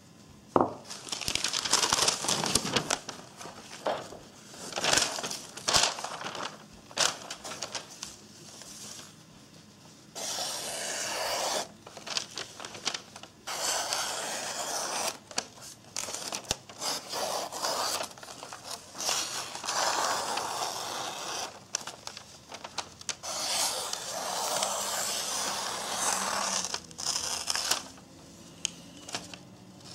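Freshly convex-sharpened Ka-Bar BK-17 knife slicing through a glossy catalogue page as a paper-cutting sharpness test, with the paper rustling and crinkling. There are short cuts and rustles at first, then several longer slices of a second or two each.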